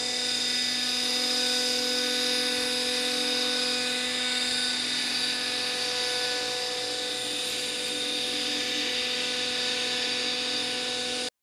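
Steady high-pitched electric motor whine, several fixed pitches held unchanged, cutting off abruptly near the end.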